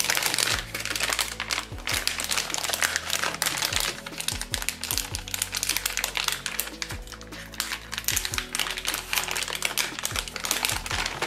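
Anti-static shielding bag crinkling as it is pulled open by hand, a dense run of crackles, over background music with steady low notes.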